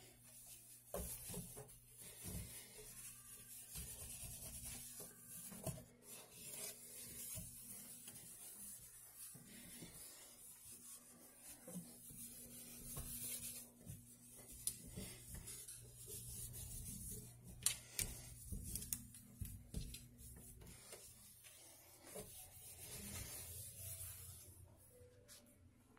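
Microfiber cloth rubbing and wiping across a stainless steel sink: a soft swishing hiss that rises and falls with each stroke, with a few small knocks and ticks partway through.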